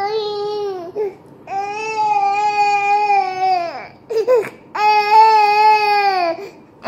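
A toddler crying hard: three long, drawn-out wails with short sobbing breaths between them.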